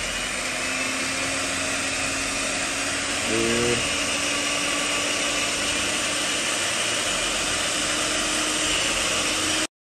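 Electric hand mixer running steadily with a motor whine, its beaters whisking egg whites and sugar in a glass bowl to beat them into a cream. The sound cuts off suddenly near the end.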